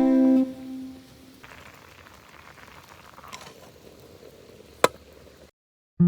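Strummed acoustic guitar music dying away, then a faint steady hiss with a single sharp click near the end before the sound cuts off abruptly.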